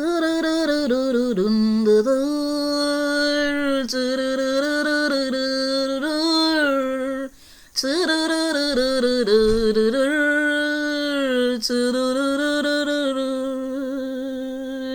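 A solo voice singing a wordless, unaccompanied melody in long held notes with slow bends in pitch, breaking off briefly about seven seconds in.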